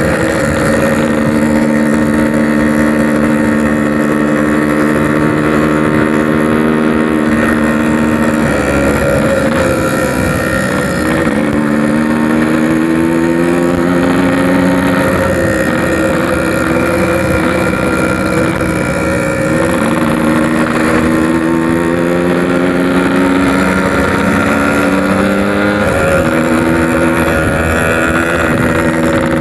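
Yamaha RX-King's 135cc two-stroke single-cylinder engine with a packing power exhaust, running while riding. The revs climb and then drop back sharply about three times.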